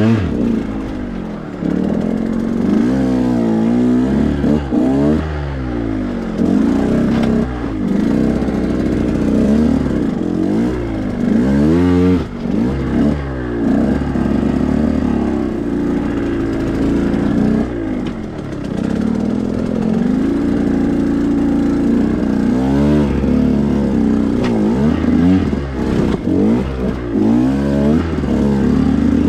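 A 2021 KTM 125 XC's single-cylinder two-stroke engine revving up and down in short bursts, over and over, as the dirt bike is ridden slowly through technical terrain, with steadier running in between.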